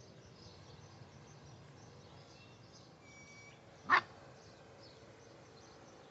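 A puppy gives one short, sharp yelp about four seconds in, over faint bird chirps.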